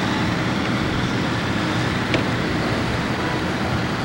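Steady rush of surf and wind on the microphone at the water's edge, with a single sharp click about two seconds in.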